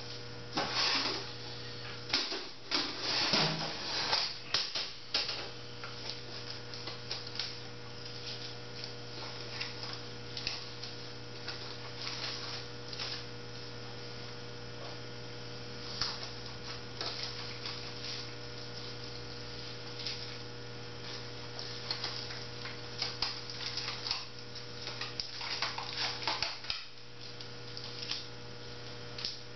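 Steady electrical mains hum throughout, with scattered small clicks and rattles that come in a cluster in the first few seconds and again near the end.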